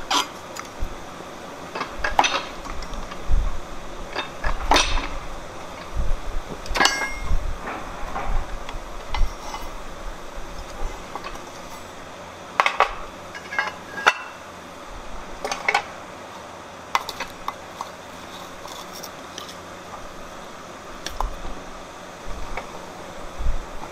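Scattered sharp metallic clinks and knocks, steel on steel, about a dozen spread unevenly, as a hot bar is worked under a fly press and the tooling and tongs are handled on the press bed.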